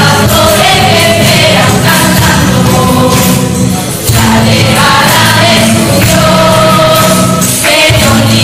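Choir of young voices singing with instrumental backing, pausing briefly about four seconds in.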